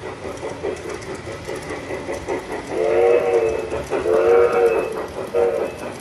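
G-scale model steam locomotive's sound system: rhythmic chuffing, then a chime steam whistle of several notes at once blowing two long blasts and a short one.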